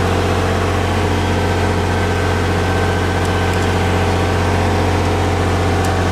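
Miller 400D welder generator's diesel engine running steadily, a loud even hum, while it powers the house and shop circuits.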